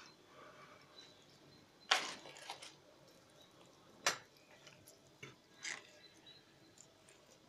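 Raw beef chunks being handled and pressed by hand into an earthenware güveç pot: a few soft wet squishes and light clicks, the loudest about two seconds in and a sharp click about four seconds in.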